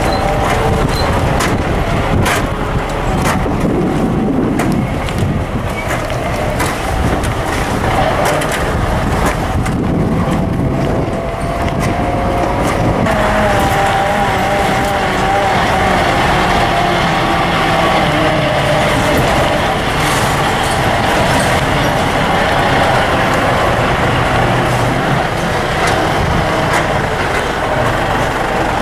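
Vehicle engine and road noise heard on board a vehicle driving a rough dirt hill road: the engine runs steadily under load, its pitch wandering up and down as the speed changes, with frequent knocks and rattles from the rough surface.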